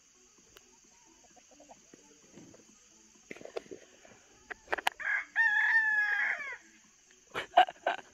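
Chickens clucking softly as the flock gathers, then a rooster crows once, about five seconds in, the loudest sound here. A few short, sharp clucks follow near the end.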